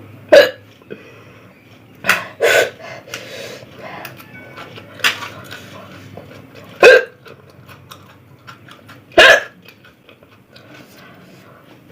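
A person hiccuping again and again: about six short, sharp hiccups, one to three seconds apart, while eating very spicy food.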